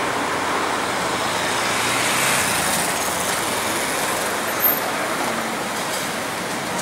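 Lisbon Remodelado tram number 552 rolling along street rails toward the listener: a steady rumble of the car on its track, mixed with city traffic noise. A short knock comes about two-thirds of the way in.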